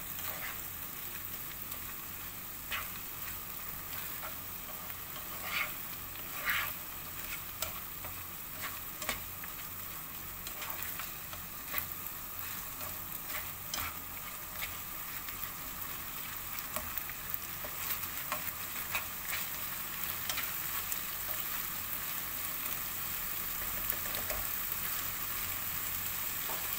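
Minced beef filling with beef stock and tomato paste sizzling steadily in a pan as it simmers, with scattered short scrapes and clicks of a utensil stirring it against the pan.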